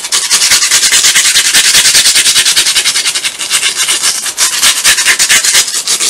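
Nail file rasping in quick back-and-forth strokes over a glittered craft truck, sanding the glitter off.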